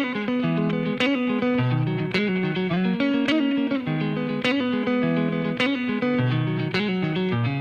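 Music: an electric guitar intro of picked notes with bass, no drums yet, with a sharp accent about once a second.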